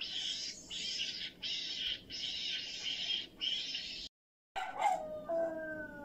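Meerkats chattering in a string of hissing calls, each burst under a second long. About four seconds in the sound cuts out briefly, and then a dog howls, its pitch falling.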